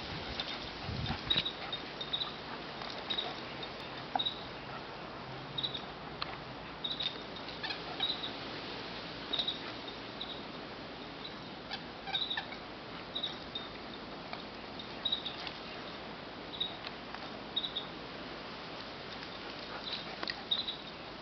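Two dogs, a Weimaraner and a German Shorthaired Pointer, tugging a toy back and forth, with scuffling and short high squeaks recurring about once a second.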